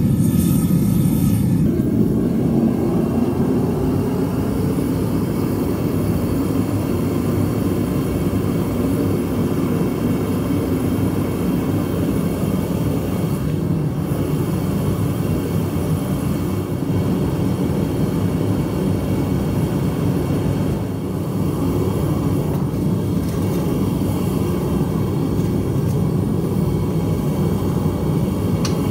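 Propane burner of a Devil Forge melting furnace running, a loud steady low rushing noise while the metal melts.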